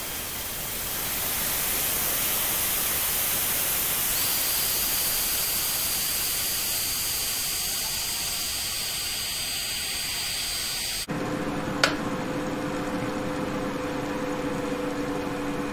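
Electric kettle coming to the boil: a loud rising hiss and rumble that holds for about eleven seconds, then stops abruptly as the kettle finishes. A click follows. After that comes the steady hum of the Victron Multiplus-II inverter's cooling fan, running after the 2,200-watt load.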